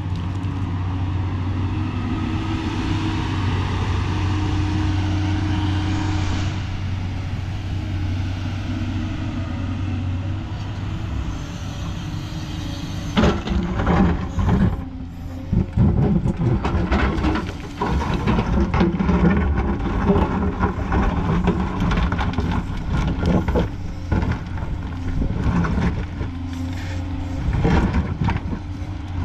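Hydraulic excavator's diesel engine running steadily. About halfway through, the bucket starts scraping and knocking in the stony trench soil, with irregular clatters of rock over the engine.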